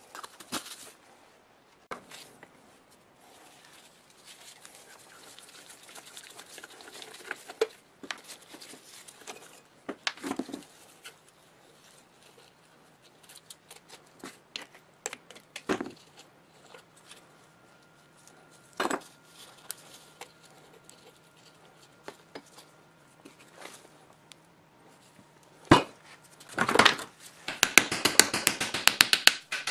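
Scattered clinks, knocks and scrapes of rusty metal parts from an old electric motor being handled and taken apart, ending in a quick run of rapid metal tapping near the end.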